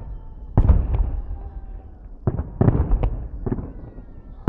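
Aerial fireworks salute: shells bursting in sharp, echoing bangs, a pair about half a second in, then a quick run of four or five from about two to three and a half seconds, over a steady low rumble.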